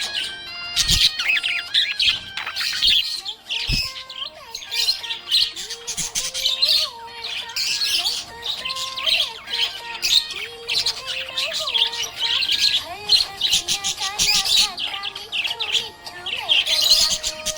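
Budgie chirping in a rapid, continuous chatter, with background music playing underneath.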